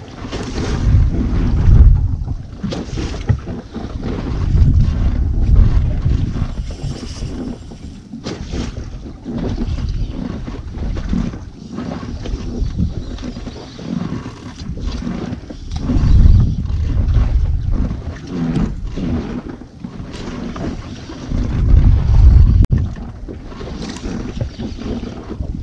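Wind buffeting a GoPro action camera's microphone in uneven gusts, a low rumble that surges several times, over a steady wash of noise typical of being out on a boat.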